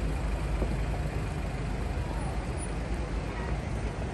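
Steady city street traffic noise, an even low rumble of road vehicles.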